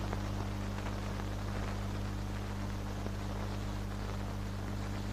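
Steady low hum over even hiss: background noise of an old film soundtrack, with no change or distinct event.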